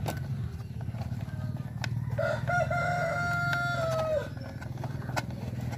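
A rooster crowing once: one long call of about two seconds that drops in pitch at its end. A steady low hum and a few sharp clicks run under it.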